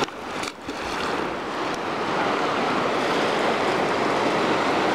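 Fast-flowing river current rushing steadily, with wind on the microphone; the sound dips briefly about half a second in.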